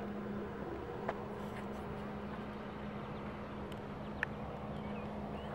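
Distant pontoon boat's motor droning steadily over the water, with a low rumble underneath. Two brief clicks, about a second in and about four seconds in.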